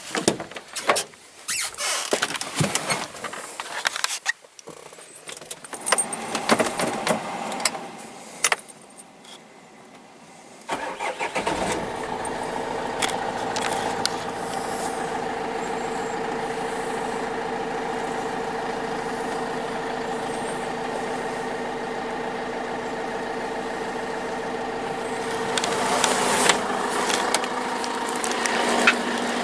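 Clicks and clatter of handling, then about a third of the way in the freshly overhauled Renault 2.5 dCi G9U four-cylinder diesel engine starts abruptly and idles steadily. It grows louder near the end.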